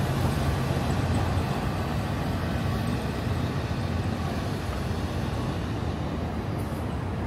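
Steady city traffic noise: a continuous low rumble of road vehicles, easing off slightly.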